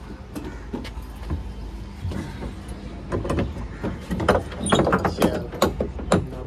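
Metal clanks and rattles from a swinging boat ride's chained gate and frame as riders climb aboard and it begins to swing, over a steady low rumble. The knocks come thicker and louder from about halfway through.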